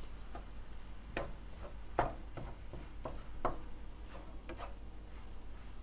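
Light, irregular taps and clicks of a cooking utensil against a non-stick frying pan as fried rice is stirred, the louder knocks about two and three and a half seconds in.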